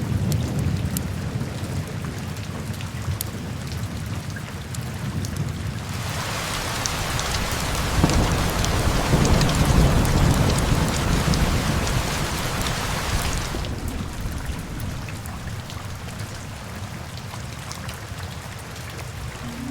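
Steady rain with a low rumble of thunder. About six seconds in, the rain swells into a heavier downpour for several seconds while thunder rolls at its loudest, then both ease back to a steady rain.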